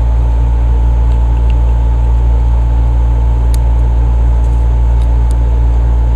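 Steady low mechanical drone of a running motor, unchanging throughout, with a thin steady whine on top and a few faint small clicks about halfway and near the end.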